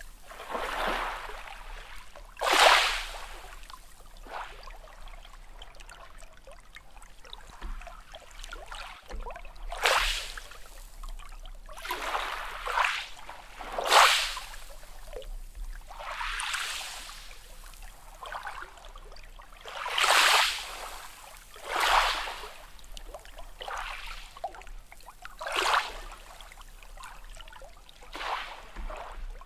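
Small sea waves splashing and washing in, a rush of water every one to three seconds with no deep rumble under it.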